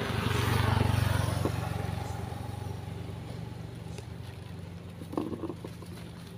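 A motorcycle passing on the road, its engine hum growing loudest about a second in, then slowly fading away.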